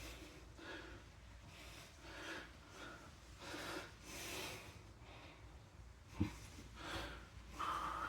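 A man breathing hard through his nose and mouth while exercising, a short breath roughly once a second. A single sharp knock about six seconds in.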